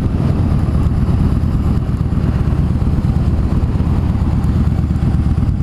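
Yamaha Bolt's V-twin engine running at a steady pace, a dense low rumble with a constant rushing haze over it.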